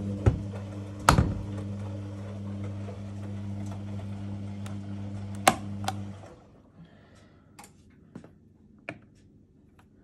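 Dishwasher motor humming steadily with several sharp clicks on top, the loudest about a second in; the hum stops about six seconds in, leaving a few faint taps.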